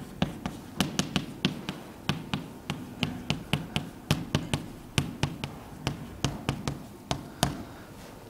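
Chalk tapping on a chalkboard while a line of handwriting is written: quick, uneven clicks, several a second, that stop a little before the end.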